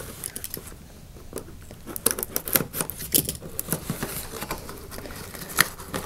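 Hands opening a cardboard toy box, cutting and pulling the tape from its side: irregular taps, scrapes and short tearing sounds, sparser about a second in and busier after about two seconds.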